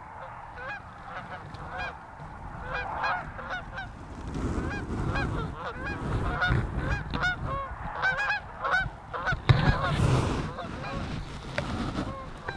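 Goose honks and clucks, many short rising-and-falling notes in quick, overlapping succession, over a low rumble.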